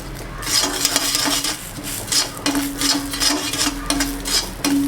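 Rice being stirred as it roasts in a hot pan: repeated scraping strokes about twice a second with a light sizzle, over a steady low hum.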